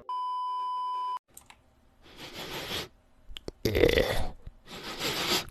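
An electronic beep, a steady single tone lasting about a second. Then a few short clicks and three brief hissing noise bursts.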